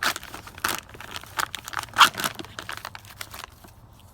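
Plastic MRE packaging crinkling and tearing as a meal bag is opened and its packets handled: a string of rustles, the loudest about two seconds in.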